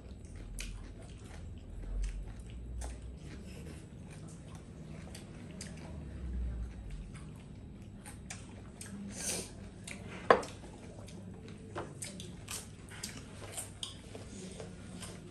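People eating by hand: chewing and mouth noises with small scattered clicks of food and dishes, and one sharp clink about ten seconds in.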